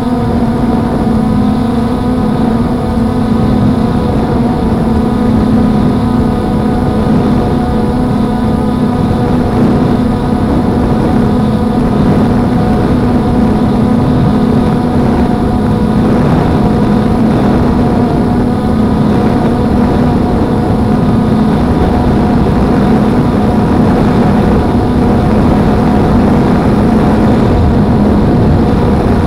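Blade 350 QX quadcopter's motors and propellers humming steadily in flight, heard through the SJ4000 camera mounted on it, with several tones stacked above the main hum over a rough low rumble.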